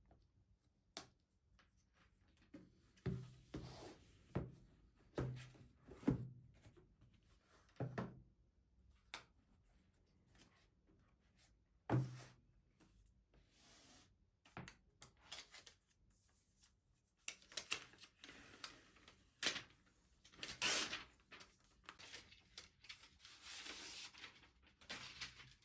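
Household handling sounds: a series of soft knocks and thuds as objects are picked up and set down, then longer scraping and rubbing sounds in the second half.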